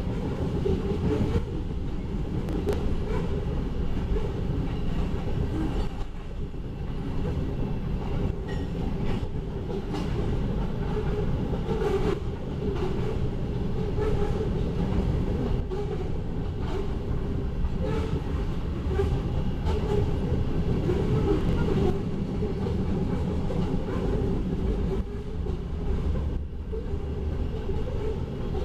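Loaded grain hopper cars of a freight train rolling past, a steady rumble with the clatter of steel wheels over the rail joints.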